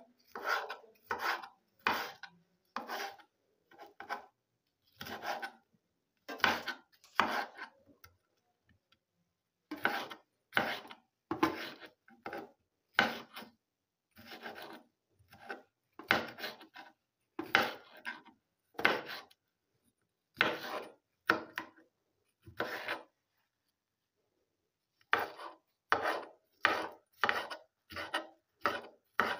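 Kitchen knife slicing a green bell pepper into strips and dicing it on a cutting board: a series of short, scraping cuts, about one to two a second, with two brief pauses.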